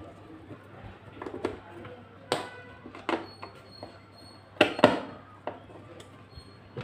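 A screwdriver working the screws out of a subwoofer driver's mounting rim: a few irregular, sharp clicks and knocks of metal tool and screws against the driver frame and cabinet, over a low steady hum.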